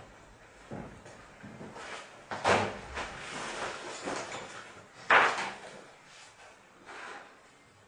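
Knocks and scrapes of someone moving about a room and sitting down, a few separate bumps with the loudest just after five seconds in, and a rustle in between.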